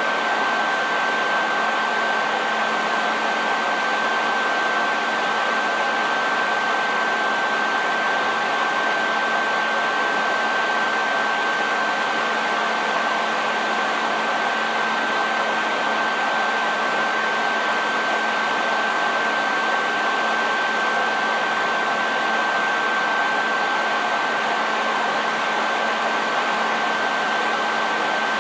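Hair dryer running steadily: an even rush of blown air with a high whine from its motor that holds one pitch throughout.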